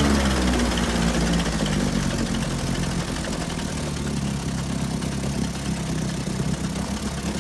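1948 Johnson TD-20 5 hp two-stroke outboard motor running steadily, a little louder in the first second and then settling into an even run.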